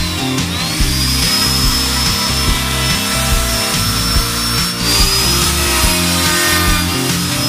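Electric plunge router running and cutting a circular hole into a pine board, a steady high whine over the rasp of the bit in the wood. The whine rises to speed about half a second in. Background music with a steady bass line plays underneath.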